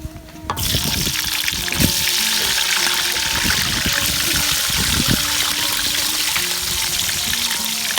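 Eggplant pieces going into hot cooking oil about half a second in, setting off a sudden, loud frying sizzle that then holds steady. Background music plays underneath.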